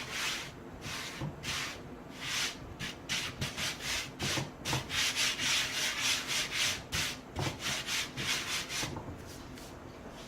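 A hand spreading flour across a pizza peel, rubbing in quick repeated strokes with a dry, sanding-like hiss.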